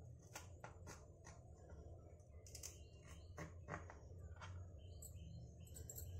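Kitchen knife cutting fresh green chilies on a plastic cutting board: faint, irregular crisp clicks as the blade snaps through the pods and touches the board.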